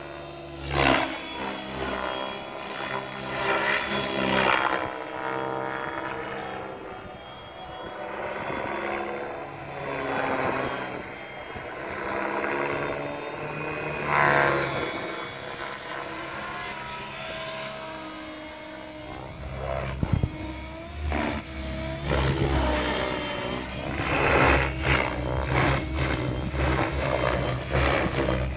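Gaui X7 electric RC helicopter in flight: its rotor and motor sound rises and falls in pitch and loudness as it moves through the air, getting louder in the last third.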